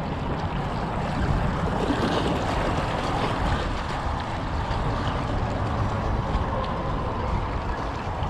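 Wind rumbling on the microphone over small sea waves washing against shoreline rocks, a steady noise with no clear separate events.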